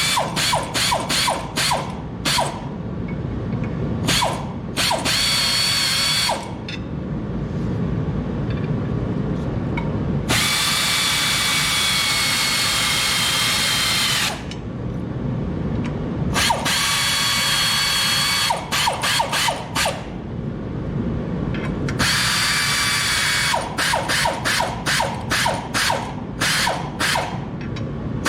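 Power driver running in several bursts, the longest about four seconds near the middle, with spells of rapid ratchet clicking at the start and near the end. The bolts clamping a clutch pressure plate to the flywheel are being run down.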